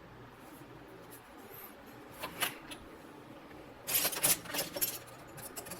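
Sharp plastic clicks and scraping from handling a headphone ear cup while its cover is being pried open: a couple of clicks about two seconds in, then a quick cluster of clicks and scrapes around four seconds in.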